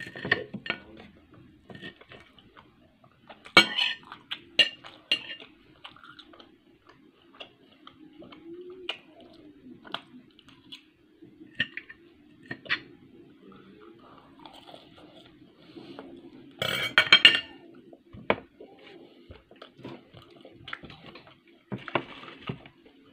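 Metal knife and fork scraping and clinking against a dinner plate while cutting and picking up food, in scattered clicks. There is a louder clatter about 17 seconds in, and the cutlery is laid down on the plate near the end.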